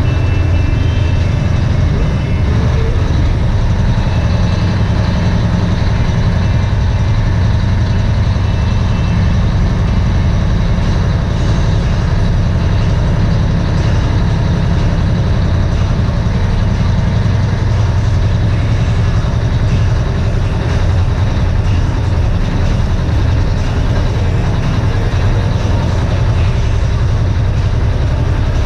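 Dump truck's diesel engine running steadily, heard from inside the cab, a heavy low drone with no revving.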